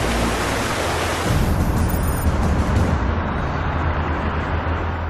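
A low, sustained music drone over the rushing of floodwater. About a second in, the water noise gives way to a duller, rumbling noise.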